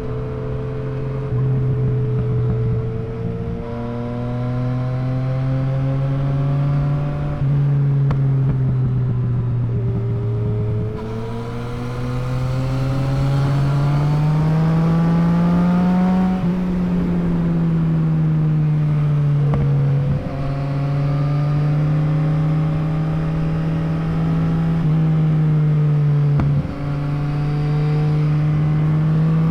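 Yamaha MT-09's three-cylinder engine running while riding, its note slowly rising and falling with the throttle. The pitch climbs over several seconds near the middle, then eases off, with two short drops in the last third.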